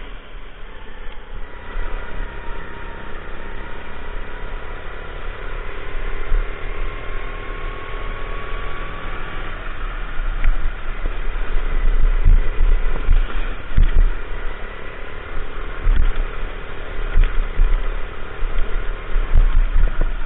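Go-kart engine running at speed, its pitch rising slowly through the middle as it accelerates along the straight. From about halfway, low thumps and wind buffeting on the kart-mounted microphone.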